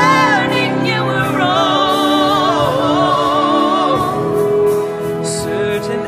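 Background music: a song with a voice singing long, wavering notes over held instrumental chords.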